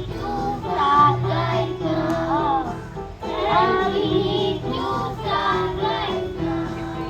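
A group of children singing a song together over instrumental accompaniment with sustained low notes.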